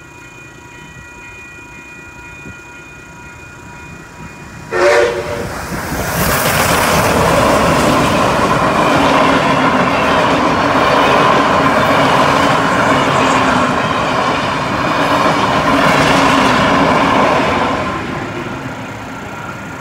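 Level crossing bells ringing, then one short whistle blast about five seconds in, followed by NSW 59 class steam locomotive 5917 and its carriages rolling over the crossing, a loud steady rumble with wheel clatter that eases off near the end.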